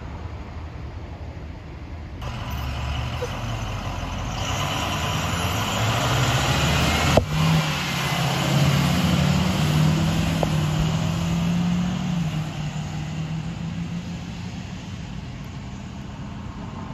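Conventional school bus driving past with a loud droning whine from its rear axle gears, which shifts in pitch as the bus goes by and fades as it pulls away, over engine and tyre noise.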